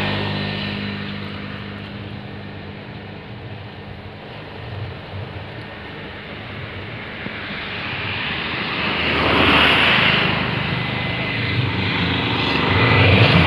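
Engine drone, loud at first, fading away, then growing louder again about nine seconds in and once more near the end.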